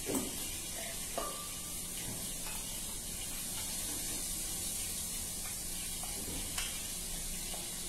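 Steady sizzling hiss of chicken frying in a pan, with a few faint clicks of a spoon against a ceramic bowl.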